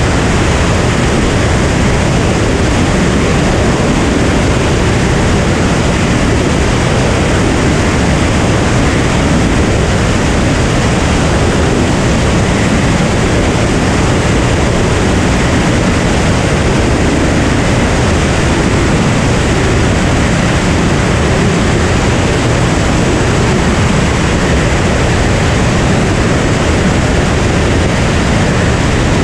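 Steady, loud rush of airflow mixed with the engine and propeller noise of a Cirrus SR22 single-engine piston aircraft in level cruise, picked up by a camera mounted on the outside of the airframe, so the wind noise dominates.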